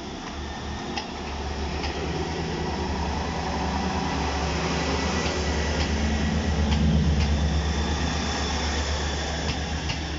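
Class 158 diesel multiple unit pulling away and running past under power: a low diesel drone from its underfloor engines builds as the cars go by, loudest about two-thirds of the way through, then begins to fade. A few light clicks from the wheels on the rails sound over it.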